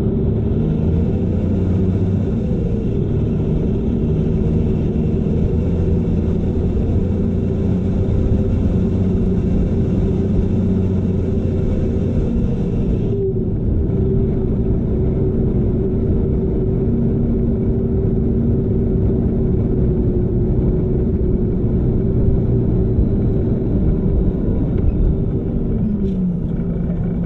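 Diesel engine of a loaded log truck running as it rolls slowly along, heard from outside the cab. The engine note drops about halfway through and again near the end.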